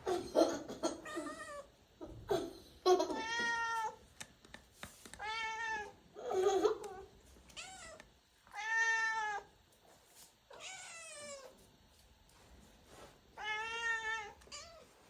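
House cats meowing over and over, about eight drawn-out calls with short pauses between them, some rising and falling in pitch: hungry cats begging for food.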